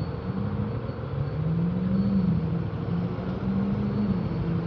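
Hyosung GT650R's V-twin engine running while riding, its pitch rising and falling slightly with the throttle, over a steady wash of wind and road noise.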